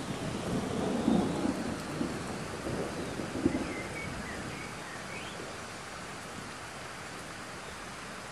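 Steady rain falling on a pond's surface, with a rumble of thunder that starts suddenly, swells about a second in and again about three and a half seconds in, then dies away, leaving the even patter of rain.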